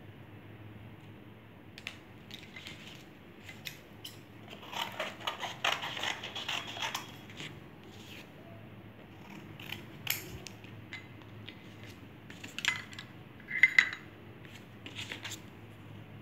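Scissors cutting paper in a quick run of snips about four seconds in, then scattered clicks and a few sharp clinks near the end, the loudest with a short ringing tone.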